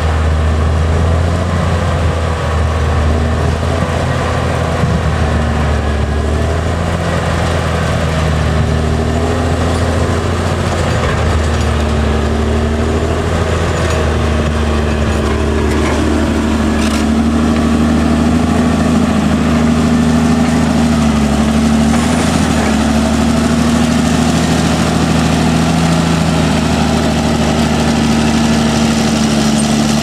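Caterpillar D6R XL crawler bulldozer's diesel engine running steadily as the dozer pushes a blade-load of dirt and rocks.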